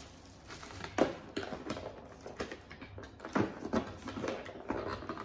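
Irregular rustles, taps and clicks of a camera box's packaging and accessories being handled and unpacked.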